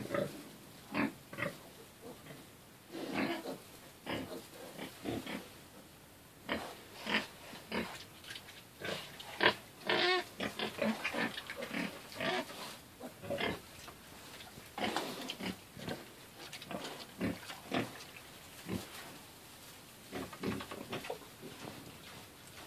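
Wild boar sow and her striped piglets grunting and squealing while the piglets suckle: a run of short, irregular calls, some higher-pitched than others.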